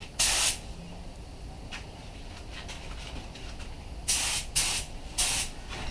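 Gravity-feed spray gun hissing in four short bursts as the trigger is pulled, one near the start and three in quick succession about four seconds in. These are light passes fogging 2K reducer over fresh clear coat to melt the new clear into the old at the blend edge.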